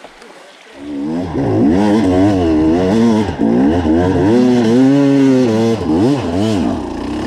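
KTM enduro motorcycle engine starting about a second in, then revved up and down over and over as the bike pulls away off-road.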